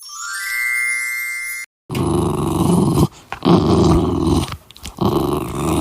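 A rising electronic whoosh lasting about a second and a half, then a dog growling in three long stretches, each cutting off sharply.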